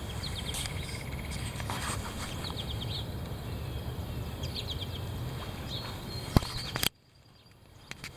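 Wind buffeting the microphone with a steady low rumble, with birds chirping now and then. Near the end a sharp click, then the sound cuts out almost to silence for about a second before slowly returning.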